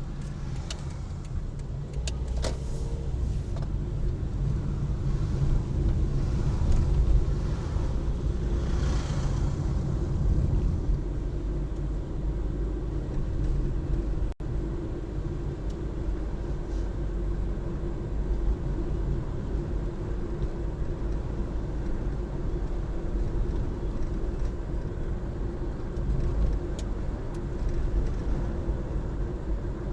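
A car driving along: steady engine and road rumble, swelling briefly now and then, with a short dropout about halfway.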